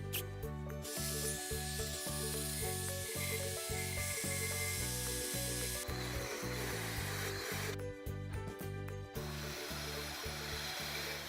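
Background music with a steady beat, mixed with a continuous rubbing, scratchy noise that drops out for about a second past the middle and then resumes.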